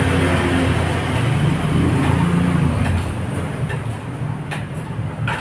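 A low engine hum that grows louder over the first few seconds and then fades somewhat, with a couple of light clicks near the end.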